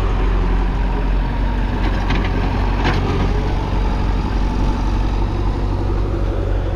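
Diesel tractor engine running steadily at low revs, with a brief knock about three seconds in.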